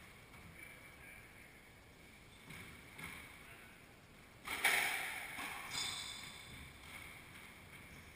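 Squash ball being struck and hitting the walls, ringing in the enclosed court: a couple of lighter knocks, then one loud smack about four and a half seconds in. Sneakers squeak briefly on the hardwood floor soon after.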